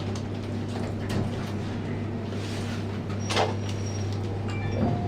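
Lift in operation: a steady low hum with the sound of sliding doors, and a sharp knock about three seconds in.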